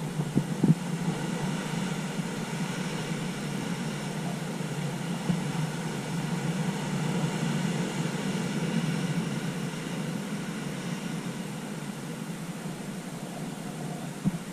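Ocean surf breaking on a rocky shore: a steady rush of waves that swells in the middle as a wave crashes white over the rocks.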